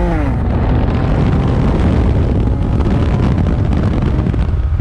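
Car running hard at speed, recorded by a GoPro: heavy wind buffeting on the microphone with engine and road noise underneath, a steady rumble throughout.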